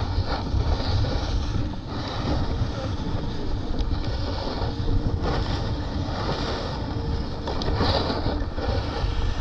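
A snowboard sliding fast over groomed snow, a steady scraping hiss, with wind rumbling and buffeting on the rider's camera microphone.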